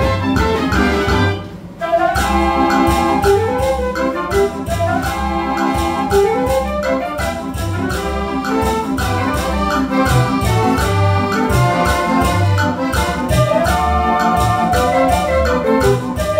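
Dutch dance organ playing a tune: pipe-organ melody with accordion and a drum-kit beat. The music breaks off briefly about a second and a half in, then starts again.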